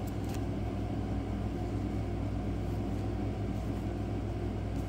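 Steady low background hum, with a couple of faint clicks near the start.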